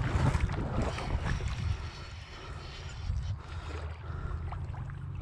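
Wind buffeting the microphone as a steady low rumble, with a few faint ticks over it.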